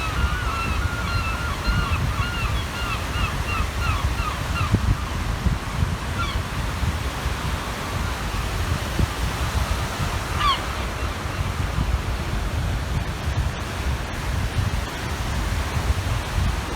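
Gulls calling: a quick run of repeated calls that slows and fades within the first few seconds, then a single call around six seconds and another around ten seconds. Underneath is a steady rumble of wind on the microphone and waves on the shore.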